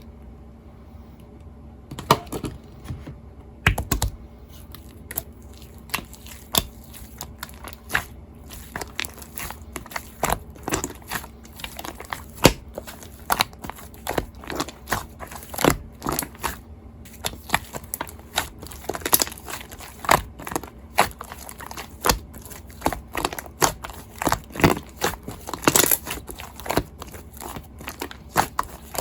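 Shaving-foam slime being squeezed and pressed by hand, giving irregular crackling pops and clicks, several a second. It starts about two seconds in and grows busier toward the end.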